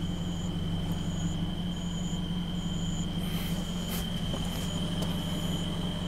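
Insects chirping at night: a steady high trill with a short, higher chirp repeated about once a second, over a low steady hum, with a few light clicks in the second half.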